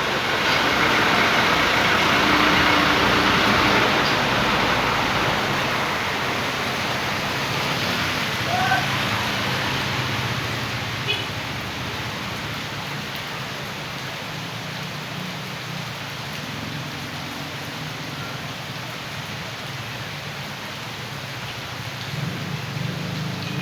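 Rushing rainwater runoff flowing like a mudflow, a steady broad hiss of water, loudest in the first few seconds and then easing. A low hum builds near the end.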